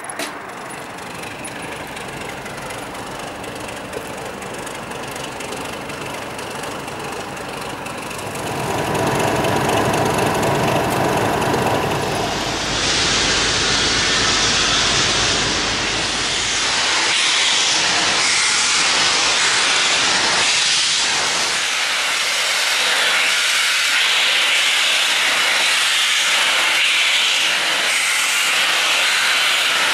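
Steam locomotive letting off steam. A rumble builds about eight seconds in, then a loud, steady hiss of steam starts a few seconds later and carries on.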